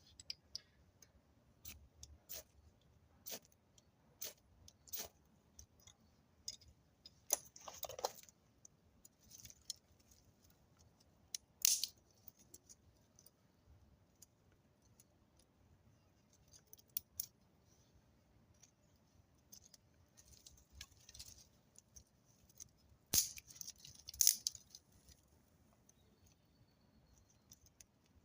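Scattered sharp clicks and light crackles at irregular intervals, with a few louder cracks about twelve seconds in and twice more around twenty-three to twenty-four seconds in.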